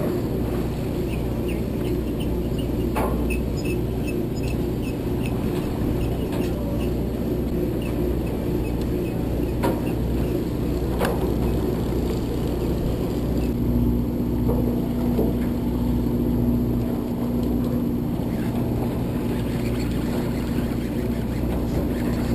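Party boat's engine running, a low steady drone, with a few light clicks and knocks and a steadier hum joining about halfway through.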